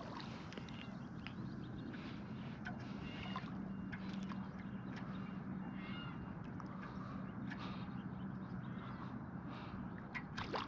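Faint outdoor ambience: a steady low hum with a few short, faint bird chirps and scattered small clicks.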